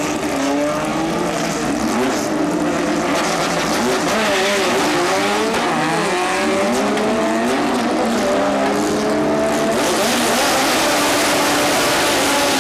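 Turbocharged, nitrous-fed 1641cc air-cooled VW flat-four running at full throttle on a drag run, its pitch climbing again and again as it pulls through the gears.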